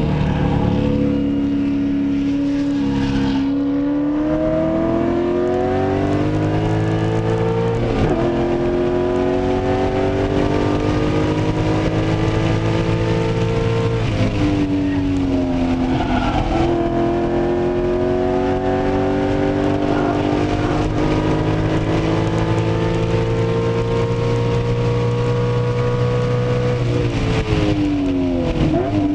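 Race car's engine heard from inside the cabin, run hard around a track: its pitch climbs steadily, drops sharply at each gear change, rises in one long pull, and falls near the end as the car brakes and downshifts.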